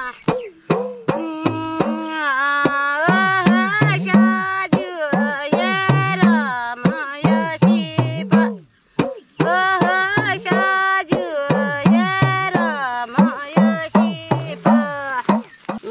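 A woman singing a Kumaoni jhoda-chanchari folk song, with hand-drum strokes beneath the melody; the singing breaks off for a breath about nine seconds in.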